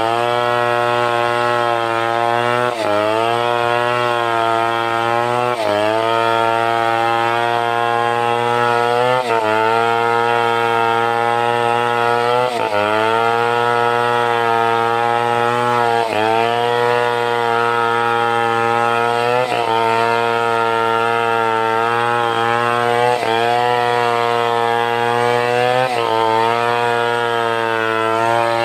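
Stihl 070 chainsaw, a large single-cylinder two-stroke, running at high revs while cutting timber lengthwise into rafter stock. The engine pitch dips briefly and climbs back about every three seconds as the chain bites into the wood under load.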